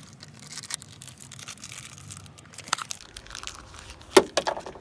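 Close crinkling and rustling handling noise as hands work a rag and a small brass part for the cooling fan. A sharp knock comes near the end.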